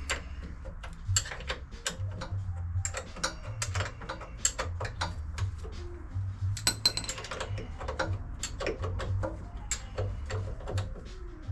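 Hand tools clicking and clinking on metal in an irregular run of sharp ticks and knocks as the bolts of a Fiat 500's rear engine mount are worked.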